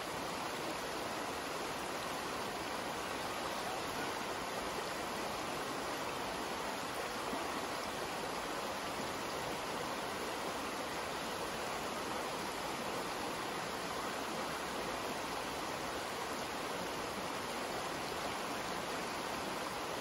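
Shallow creek water flowing over a rocky bed: a steady, even rush and ripple that does not change.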